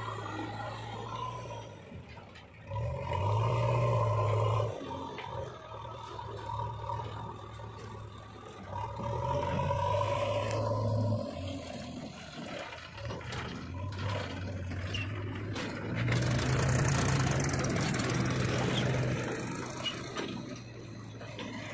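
JCB 3DX backhoe loader's diesel engine running and revving up three times as the front loader arm works, lifting and dumping loads of soil into a tractor trolley. A rushing hiss near the end comes with one of the dumps.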